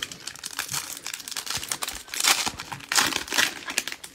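Crinkling and rustling of trading-card packaging handled by gloved hands, a run of short scratchy bursts that is loudest about two and three seconds in.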